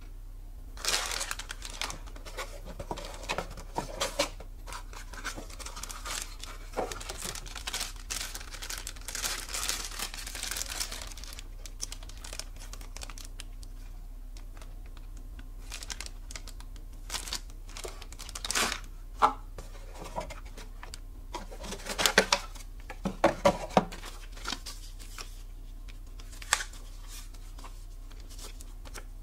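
Clear plastic packaging crinkling and rustling as it is handled and pulled apart. The crackles come thick and continuous for the first ten seconds or so, then turn sparse, with a few sharper, louder crackles and taps in the second half.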